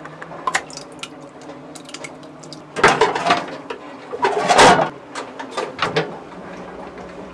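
A pull-tab soup can being opened with small metallic clicks, then two louder bursts of clatter and sloshing about three and four and a half seconds in as the soup goes into a pot on the gas stove, and a few light clicks near the end as the burner is lit.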